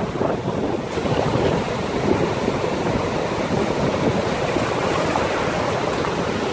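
Rough sea surf: a steady rush of breaking waves and foaming water.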